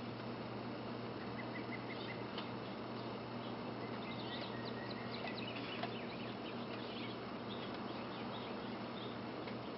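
Small birds chirping in short, high notes, busiest in the middle stretch, over a steady outdoor hiss and a low, constant hum.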